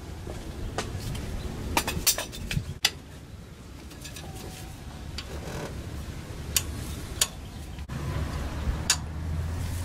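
Steel hand tools clinking against each other as a breaker bar and camshaft sprocket holding tool are handled and fitted, with a few sharp metal clinks, several close together about two seconds in.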